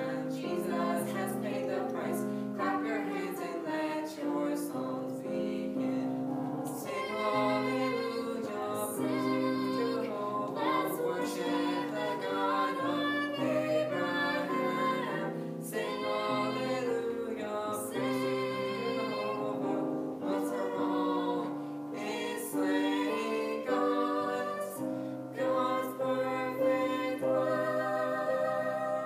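A woman and a man singing a duet live, with long held notes sung with vibrato.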